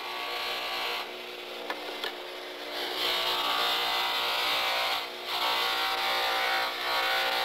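Antler carving held against a spinning cloth buffing wheel on an electric buffer: a steady rubbing hiss over the motor's hum, during the final polishing stage. It grows louder about three seconds in and dips briefly twice as the piece is moved around on the wheel.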